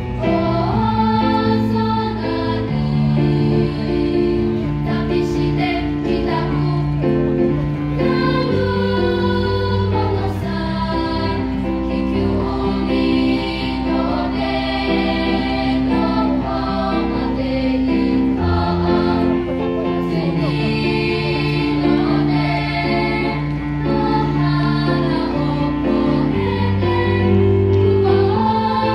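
Children's choir singing a song, several voices holding and moving between notes together.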